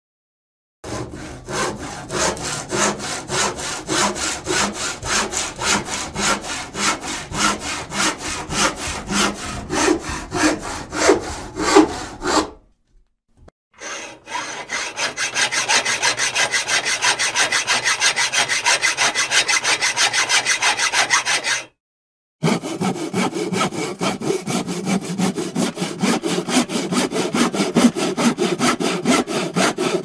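Handsaw cutting with rapid back-and-forth strokes, in three runs broken by short silences about a third and two thirds of the way in. The middle run has quicker, more even strokes.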